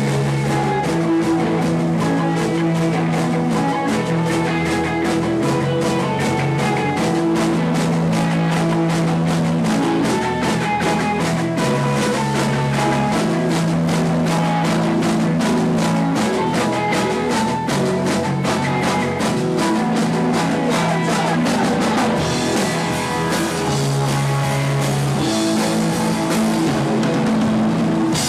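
Punk rock band playing live: electric guitars and bass over fast, steady drumming on a drum kit.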